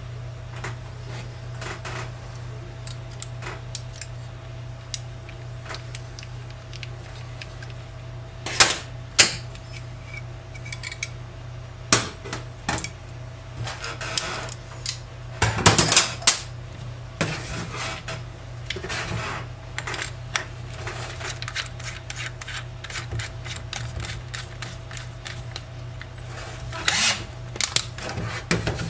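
Metal parts of a cast-iron crank apple peeler clinking and clattering on a stainless steel counter as the peeler is taken apart and its pronged shaft is fitted into a drill chuck. The clinks come at scattered moments, loudest around a third of the way in, just past halfway and near the end, over a steady low hum.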